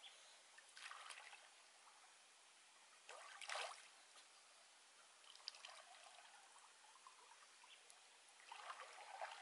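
Faint sloshing and splashing of river water around a person wading chest-deep, in a few soft surges: about a second in, around three and a half seconds in, and again near the end.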